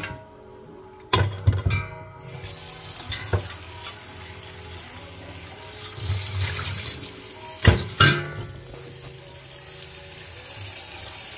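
Kitchen tap running into a large stainless-steel stockpot in the sink, filling it with water, starting about two seconds in. Metal clunks as the pot is picked up and set down, the loudest pair about eight seconds in.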